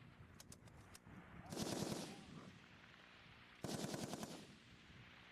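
M60 7.62mm machine gun firing two short bursts of several rounds each, about two seconds apart: the 6-to-9-round bursts of range practice.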